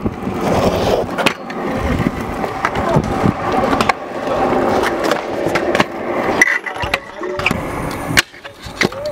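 Stunt scooter wheels rolling on rough concrete, a steady rumble broken by several sharp clacks as the scooters hit ledges and land.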